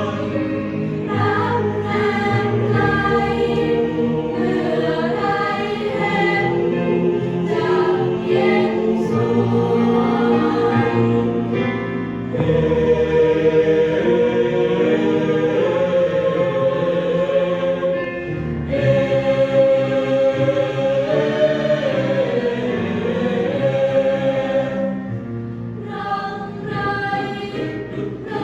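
A school choir singing in harmony, several voice parts holding and moving together through sustained phrases.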